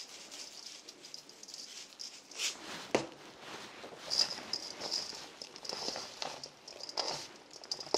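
Faint, soft rustling and light clicks of blanched bean sprouts and sautéed vegetables being tossed together in a bowl, with one sharper click about three seconds in.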